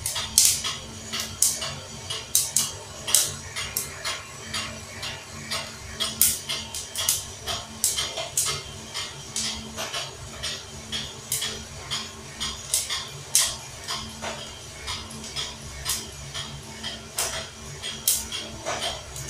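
Coffee beans clicking inside a hand-turned stainless-steel roasting drum: many sharp, irregular clicks a second over a steady low hum.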